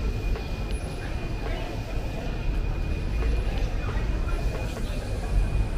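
Elevated train on the overhead tracks: a steady low rumble with a thin, steady high tone over it.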